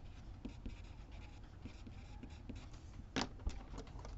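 Wooden pencil scratching on paper on a clipboard in short strokes as words are written, then a sharp tap about three seconds in, followed by a smaller one, as the pencil is set down on the desk.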